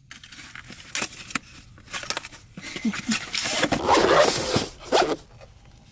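Clicks and scrapes of a new GoPro Hero 11's retail packaging being pried open. Then, about three seconds in, a steady rasp lasting nearly two seconds as the camera's zippered carrying case is unzipped.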